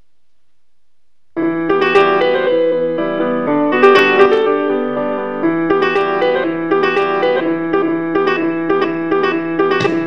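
A piano-style keyboard loop starts abruptly about a second and a half in and keeps playing through audio monitors. It is an audio sample in Ableton Live, set off by touching an orange wired up as a touch-sensor button.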